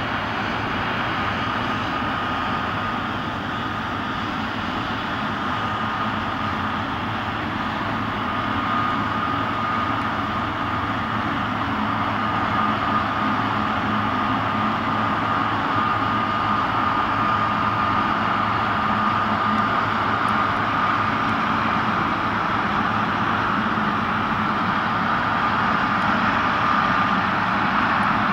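Boeing 777-300ER's twin GE90 jet engines running at low power on the ground: a steady jet rush with an even, high fan whine held on one pitch, slowly growing louder.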